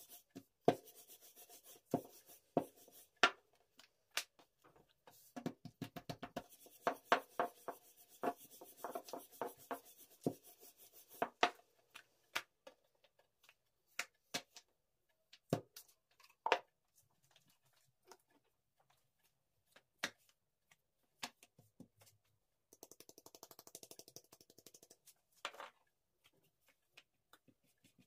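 A rolling pin working thin pastry dough on a wooden tabletop: irregular knocks and taps of the pin against the table, with rubbing of the dough. A quick, even rattling run comes near the end.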